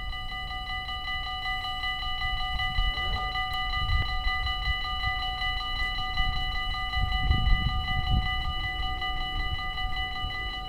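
Railway level-crossing warning bell ringing continuously with a steady metallic ring, over low wind rumble on the microphone that swells about seven to eight seconds in.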